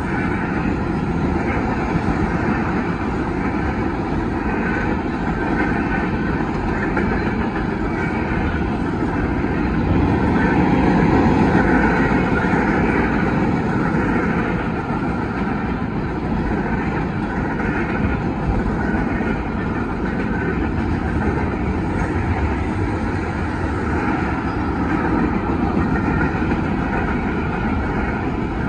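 Freight train cars rolling past at speed: a steady noise of steel wheels on the rails, swelling a little about ten seconds in.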